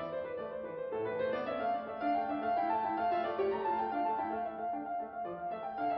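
Background piano music: a melody of held notes that runs on without a break.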